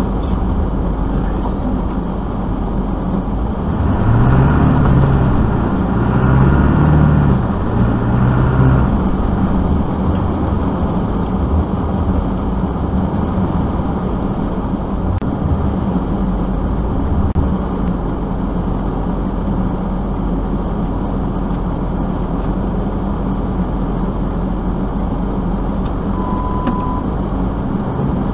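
Motor vehicle engine running steadily, its revs rising and falling a few times about four to nine seconds in. A brief high beep sounds near the end.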